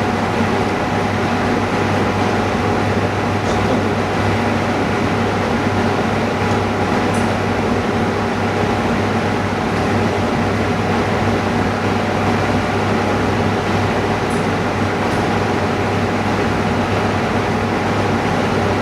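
Steady mechanical hum of running machinery, unchanging throughout, with a few faint light clicks.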